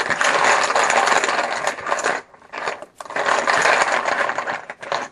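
A handful of poker chips clattering as a hand stirs and shakes them inside a bag to draw one, in two long spells with a short break about two seconds in.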